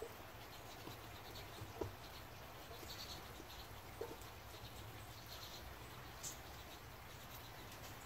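Seed mixture tipped from a stainless steel mixing bowl into a seed-log mould tube: faint light pattering, with a soft knock about two seconds in and another about four seconds in.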